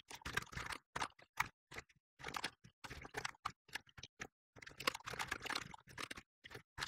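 Fast, irregular typing on a computer keyboard: runs of keystrokes broken by brief pauses.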